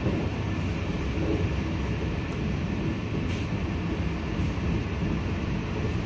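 Steady running noise of a passenger train, the Mumbai Rajdhani with Tejas coaches, heard from aboard.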